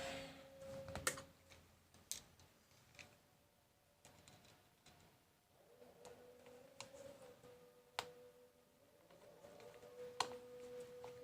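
Scattered light clicks and taps of small laptop parts and tools being handled, a few sharp ones standing out, over a faint steady hum.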